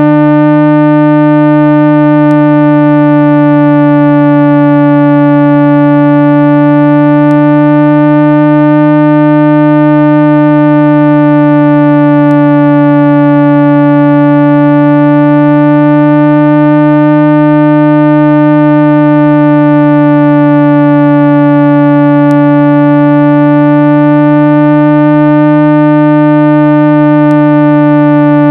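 Loud, steady synthesized low tone with a stack of overtones: a speaker-cleaning tone, billed as 396 Hz, played to vibrate water and dust out of a phone speaker. It swells and fades gently about every eight seconds.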